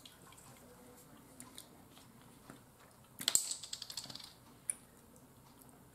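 Plastic cap of a hot sauce bottle being worked open by hand: a quick run of small clicks about three seconds in, then one more click.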